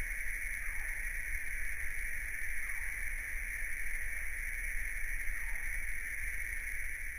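Outdoor woodland ambience: a steady high-pitched drone, a few faint falling calls, and a low rumble like wind on the microphone.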